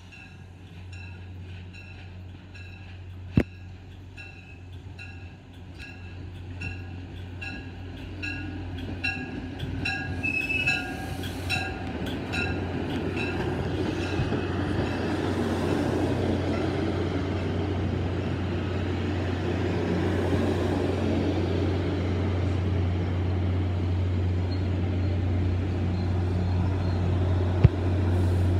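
Commuter train approaching and passing along the platform: a bell rings about twice a second for the first twelve seconds or so, while the rumble of wheels on rail grows louder as the coaches roll by, loudest near the end as the pushing locomotive nears. Two brief sharp clicks stand out, one a few seconds in and one near the end.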